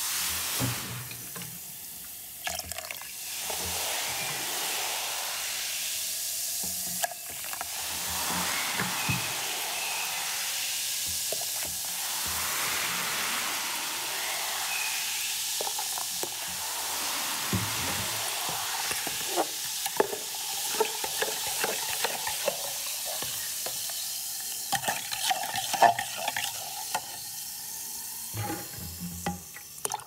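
Baking soda and vinegar fizzing and foaming as the mixture is stirred with a long-handled tool. Steady fizzing, with many short scrapes and light knocks of the tool against the container, more frequent in the second half.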